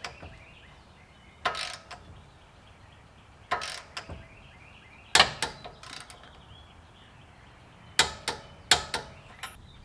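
Socket ratchet being worked on a nut of the new steering linkage at the front steering knuckle: short bursts of ratcheting, in separate strokes a second or two apart, then several in quick succession near the end. Birds chirp faintly in the background.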